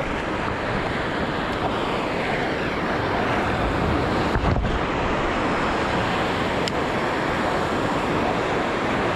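Sea surf breaking and washing over shore rocks in a steady, continuous rush, with wind buffeting the microphone.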